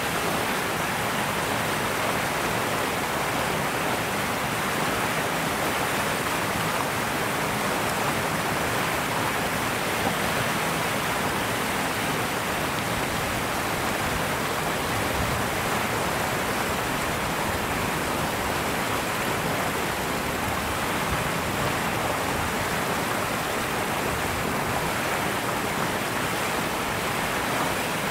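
Steady, even rushing noise at a constant level, with no distinct sounds standing out.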